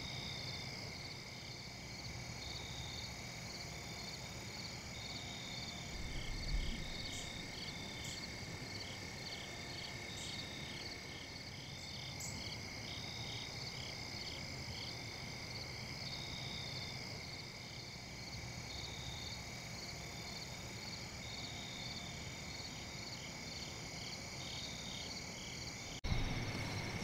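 Evening insect chorus: crickets trilling steadily, with a repeating pulsed chirp running over the trill. A soft low thump comes about six seconds in.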